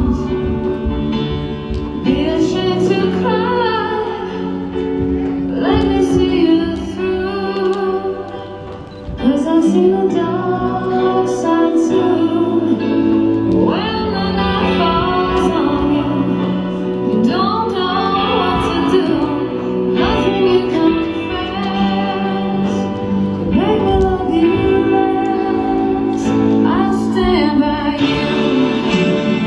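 Music: a song with a woman singing over instrumental backing.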